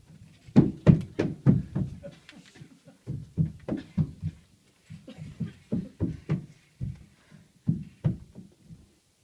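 Quick, heavy footsteps of a performer running across a stage floor, coming in four runs with short pauses between them.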